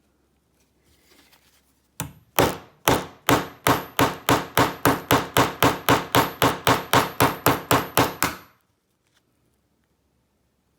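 About twenty sharp, evenly spaced strikes, roughly three a second for some six seconds, from a tool being worked into a plastic lockout padlock body a little at a time to cut it open.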